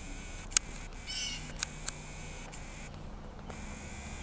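Sharp handling clicks from a handheld camera being panned and zoomed, loudest about half a second in, with two lighter ticks later. About a second in, a brief high-pitched wavering animal call.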